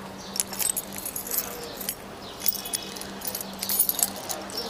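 Light metallic jangling and clicking in scattered short bursts, over a faint steady low hum.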